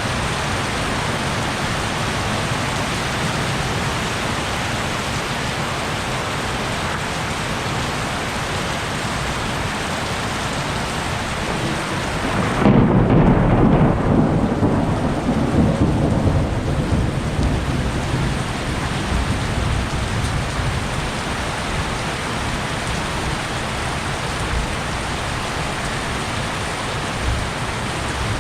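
Heavy rain falling steadily; about 13 seconds in, a loud low rumble of thunder breaks in and rolls on for several seconds before fading back under the rain.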